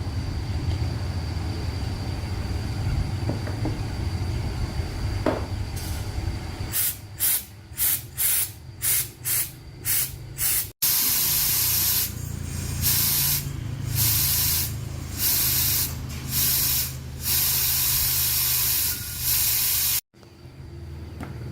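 A low steady mechanical rumble, then a pressurised air jet hissing in quick short bursts. After a sudden cut come longer bursts, each about a second long, typical of an air blow gun or spray gun worked by trigger.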